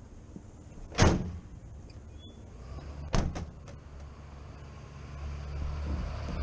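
Two sharp bangs about two seconds apart, the first the louder, followed by a steady low machine hum that grows slightly louder toward the end.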